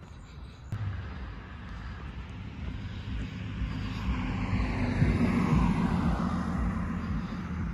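A passing motor vehicle, growing louder to a peak about five seconds in and then easing off slightly, with a low steady hum under it.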